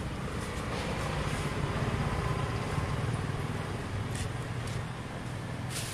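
Road vehicle engine running, a low steady drone that swells about two seconds in, with a few brief rustles near the end.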